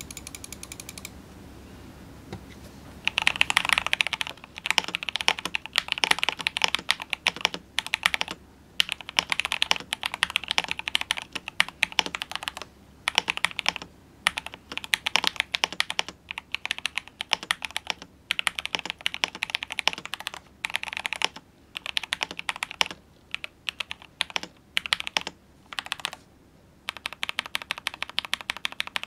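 Mechanical keyboard typing on a KBD67 Lite fitted with Magic Girl tactile switches. The typing begins about three seconds in and goes on in quick bursts of keystrokes with short pauses between them.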